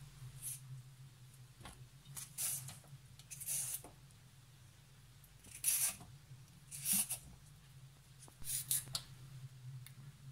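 A carrot being scraped with a peeler or knife: about six short scraping strokes spread unevenly, over a steady low hum.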